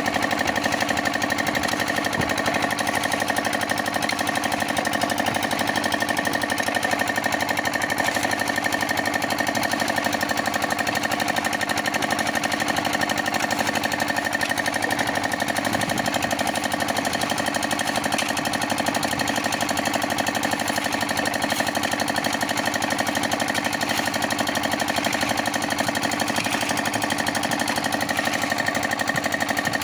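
Concrete mixer running steadily: a fast, even mechanical rattle over a constant hum.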